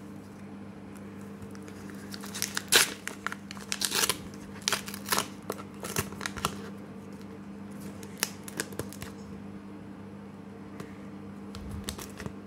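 A Pokémon card booster pack wrapper being torn open and crinkled by hand: a busy run of sharp tearing and rustling from about two seconds in, loudest early on, dying down to light handling after about nine seconds. A faint steady hum runs underneath.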